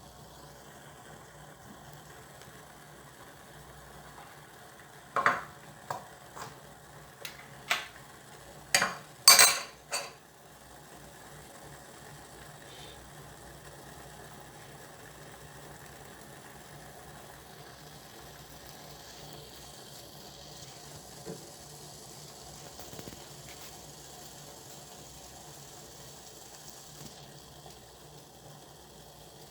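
A run of about eight sharp clinks and knocks of kitchen utensils over some five seconds, the loudest near the end of the run, then only a faint steady low hum.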